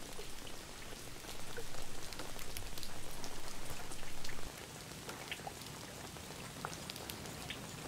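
Rain pattering on standing water, with many separate drops landing. A heavier, lower rumble under it for a few seconds cuts off suddenly about four and a half seconds in.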